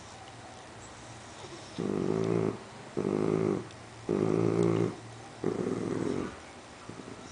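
Dachshund growling low, four rumbles of just under a second each about a second apart, guarding a plush hedgehog toy from the other dog.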